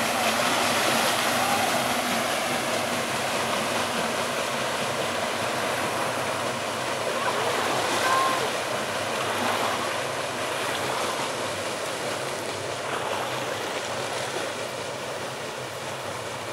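Churning and washing water from a paddle steamer's wake and paddle wheels, a steady rush that slowly fades as the boat moves away.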